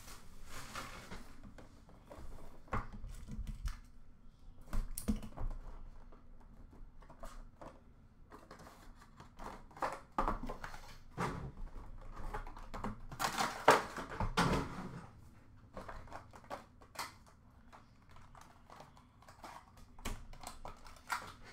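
Hands unwrapping and opening a sealed hockey trading-card box: plastic wrap crinkling, the cardboard box and its contents being handled, with scattered small clicks and taps. The rustling comes in short, irregular bursts, louder around the middle.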